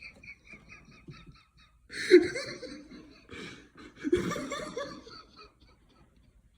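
A person laughing in two loud bursts, about two and four seconds in, preceded by quieter, rapid high-pitched giggling.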